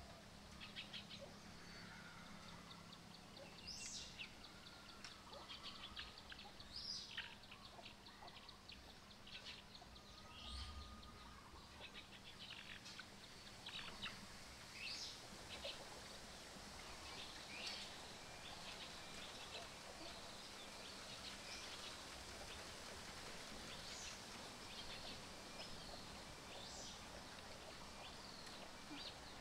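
Faint outdoor background with scattered short, high bird chirps and calls throughout, and a fast ticking trill in the first few seconds.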